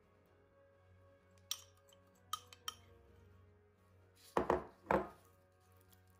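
Metal spoon clinking against a glass baking dish: a few light taps, then two louder clatters about four and a half seconds in, over faint background music.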